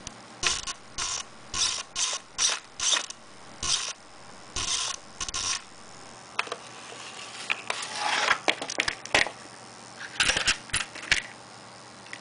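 Savox SC-1257TG digital RC servo with titanium gears, moving in a series of short strokes, each giving a brief high-pitched gear whir, with a quicker run of jerky movements about two-thirds of the way through. Its owner is unsure whether this gear noise is normal.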